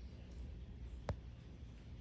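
Quiet room tone with a faint low hum, and a single short click about a second in.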